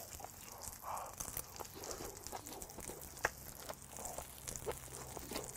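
Close-miked chewing of grilled beef offal (intestines and tripe): faint, irregular wet clicks and smacks of the mouth, with a short breathy puff about a second in.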